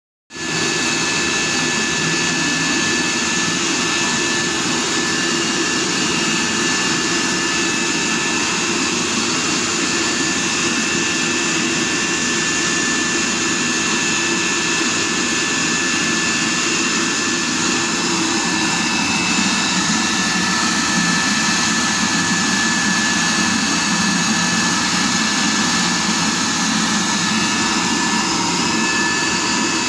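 Homemade oil-burner furnace running with its air blower: a steady rushing noise with a thin, steady whine over it.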